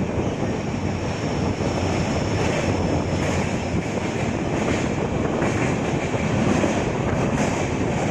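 Running noise of an LHB express train coach at speed, heard from on board: a steady rumble of wheels on rail with wind on the microphone.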